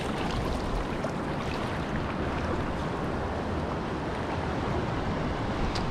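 Steady wind and ocean surf noise, with wind on the microphone.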